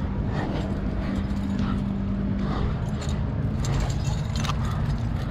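Wind rumbling on a helmet-mounted camera microphone over a steady low hum, with metal climbing gear (cams and carabiners) clinking and knocking against the rock as the climber moves up a crack, the clinks busiest a little before the end.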